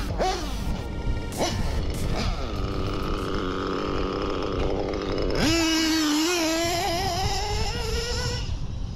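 O.S. B7TT nitro engine with a Hipex 2108 tuned pipe in an RC buggy, revving in short rising bursts and then, about halfway through, holding a long high-pitched run that climbs and wavers with the throttle before easing off near the end.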